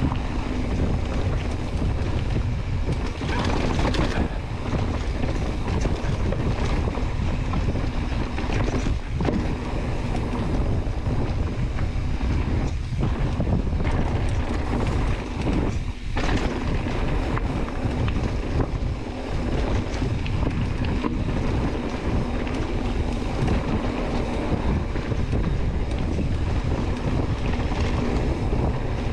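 Wind rushing over the microphone with a steady low rumble from a mountain bike descending a rocky downhill trail, broken by a few sharp knocks as the bike hits rocks.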